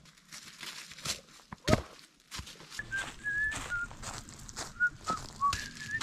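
A hiker's footsteps on a gravel road, with a sharper knock a little under two seconds in. From about three seconds in come a string of short whistled notes, each at a slightly different pitch.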